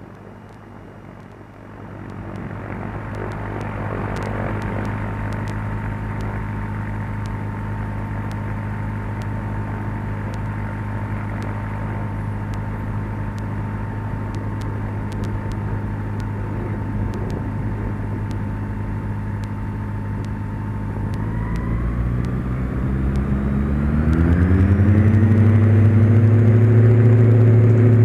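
Cessna 172's piston engine and propeller going to takeoff power, the engine rising in level about two seconds in and then running steadily. Around twenty-two seconds in its pitch rises and it grows louder, then holds.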